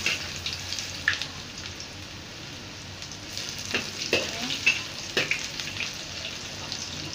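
Chopped onion sizzling in hot oil in a wok, stirred with a metal spatula that scrapes and knocks against the pan several times, about a second in and again midway through.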